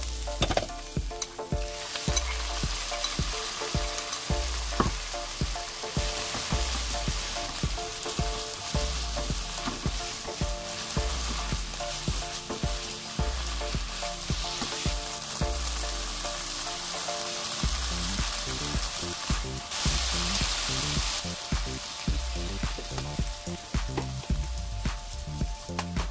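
Garlic scapes and fish cake strips sizzling in oil and soy-based sauce in a nonstick wok while being stir-fried, with frequent short taps and scrapes of a silicone spatula against the pan.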